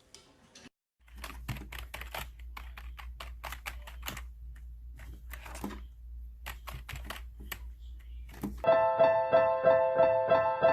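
A quick, irregular run of sharp clicks, like keys being typed, over a steady low hum. Piano music with repeated notes comes in suddenly near the end.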